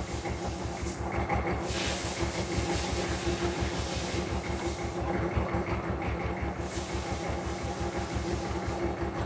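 A machine running steadily with an even low pulsing, about seven or eight beats a second, under a steady hiss.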